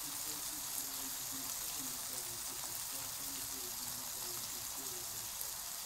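Beefburgers with pineapple rings and banana slices sizzling steadily in a frying pan.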